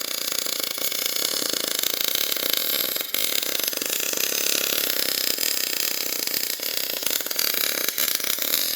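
CO2 (MIG/MAG) welding arc running steadily with a continuous crackle, broken briefly about three seconds in.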